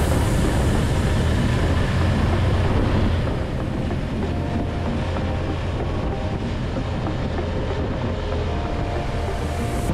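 Large BMW GS adventure motorcycles riding in a group, heard from a moving bike: a steady low engine rumble mixed with road and wind noise, dropping a little about three seconds in.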